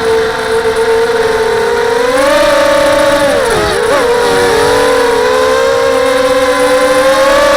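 Quadcopter's SunnySky 2204 2300KV brushless motors spinning 5x3 propellers: a steady whine that rises in pitch about two seconds in, wavers up and down around the middle with throttle changes, then holds.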